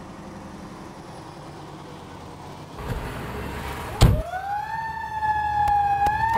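Low, steady background hum, then a sharp thump about four seconds in, followed by a siren tone that rises in pitch and then holds steady near the end.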